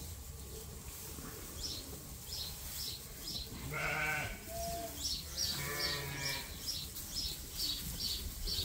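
Hungry ewes bleating at a hay feeder: two long bleats, about four and six seconds in. A bird chirps quickly and repeatedly in the background.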